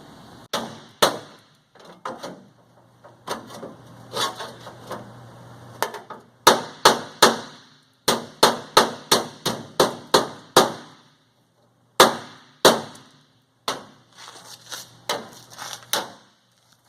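Hammer striking sheet metal, about two dozen sharp blows in irregular runs with short pauses between, each with a brief metallic ring, as a rust-repair patch panel is knocked into place to overlap the old metal.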